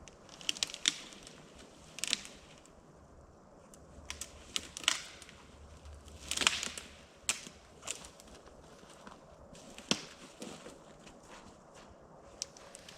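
Irregular crunching, snapping and cracking of branches and brush being handled and stepped on, about ten separate cracks, the loudest around halfway. No chainsaw is running.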